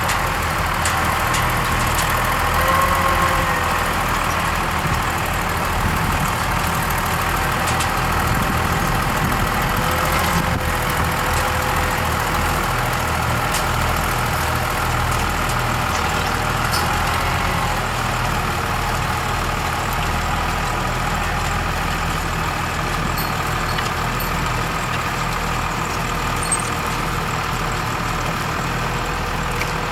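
Tractor engines and a potato harvester's machinery running steadily, a continuous diesel drone with a constant mechanical hum.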